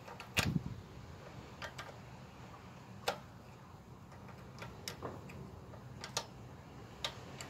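Irregular light metallic clicks of a combination spanner on the lock nuts of the motorcycle's exhaust valve cable adjusters as they are tightened, the loudest about half a second in.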